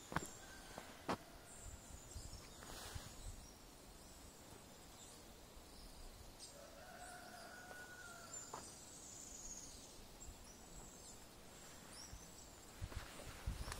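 Faint outdoor ambience with scattered high, short bird chirps. Two sharp clicks come in the first second or so, and a brief steady tone sounds about halfway through.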